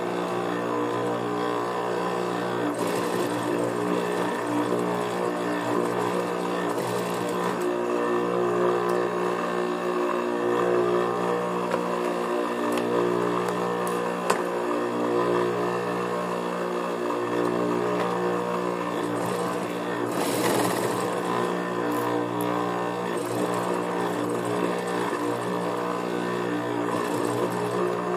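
Juki industrial sewing machine's motor running with a steady hum, with a few short louder bursts of stitching.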